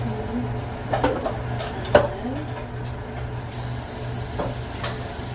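A cooking utensil knocking against a pot, two sharp strikes about one and two seconds in and a lighter one near the end, over a steady low hum.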